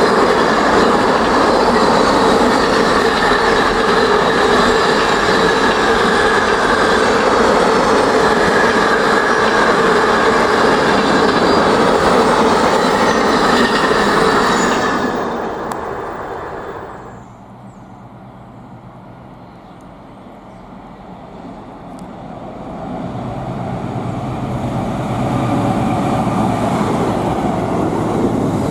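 Freight train passing at speed: a dense rush of wagon wheels on the rail with steady high tones over it, fading away just past halfway. After a few quieter seconds another train approaches, growing louder toward the end.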